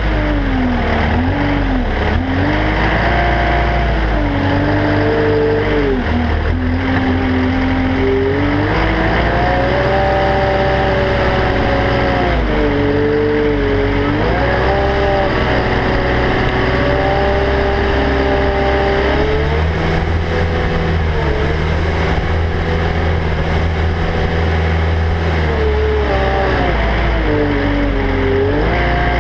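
Caterpillar 299D XHP compact track loader's turbo diesel engine running as the machine works. Its pitch repeatedly sags and climbs back, with a heavy low rumble underneath.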